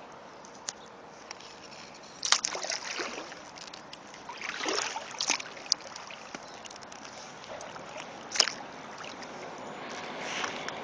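Kayak paddle strokes in calm river water: the blade splashing and swishing, with drips, over a steady hiss. The sharpest splashes come about two seconds in and again near the end.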